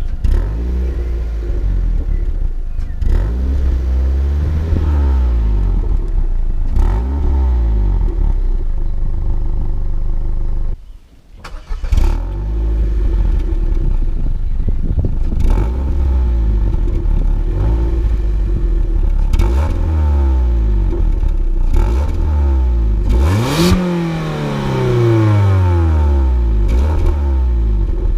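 Ford Fiesta Zetec S exhaust at the tailpipe, the engine revved over and over while standing: each rev climbs in pitch and falls back to idle, with the longest rev near the end. Sharp pops and crackles come from the exhaust as the revs drop. The sound stops briefly about eleven seconds in.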